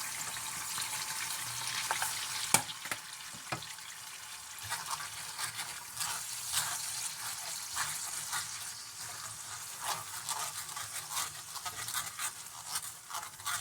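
Eggs sizzling in a frying pan while a spatula stirs and scrapes them in a string of short strokes, with a sharp knock about two and a half seconds in.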